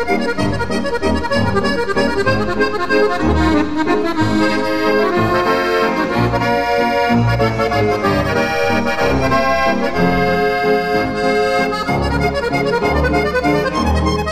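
Background music: a traditional folk tune played on accordion, with a steady beat of bass notes under the melody.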